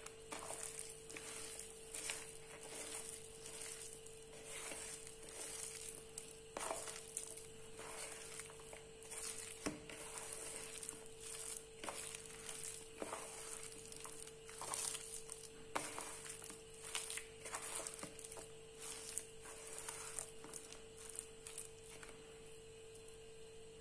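Hands mixing slivered onions into a thick chickpea-flour batter in a stainless steel bowl: irregular wet squelching and rustling, with occasional sharper clicks, over a faint steady hum.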